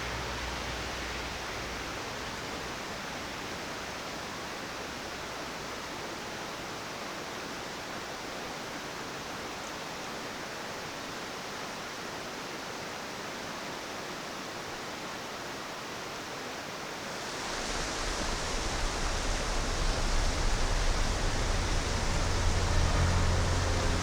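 Rushing mountain trout stream, a steady hiss of running water that grows louder and fuller, with more low rumble, about three-quarters of the way through.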